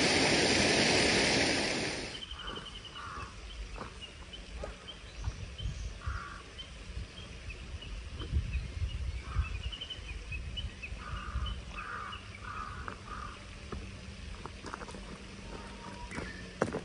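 A loud, steady rushing noise that cuts off abruptly about two seconds in, followed by quiet pond-side ambience with birds calling in short chirps and a few soft low thumps.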